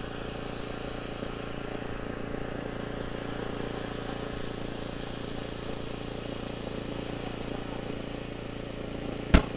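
An engine running steadily at an even hum, with a short sharp click just before the end.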